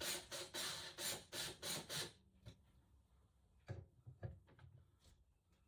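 About seven quick scraping strokes in the first two seconds of hand work on a wood panel, then a few light knocks and clicks.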